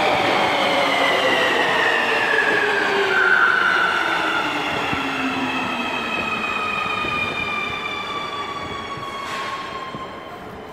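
Nuremberg U-Bahn train braking into a station: the electric traction motors whine, several tones falling steadily in pitch over the rumble of wheels on rail as it slows to a stop. A brief hiss comes near the end as it halts.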